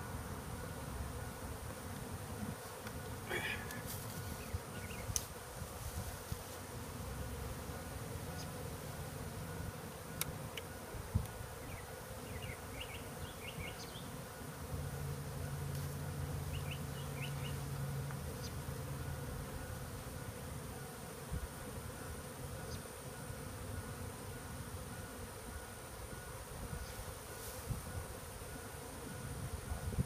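Honey bees buzzing around an opened hive box, a steady drone that swells louder for a few seconds around the middle. Occasional light clicks and knocks sound over it.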